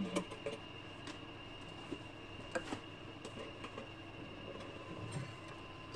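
A few light clicks and taps from a small metal saucepan and spatula being handled on a portable hotplate, over a faint steady hum with a thin high tone.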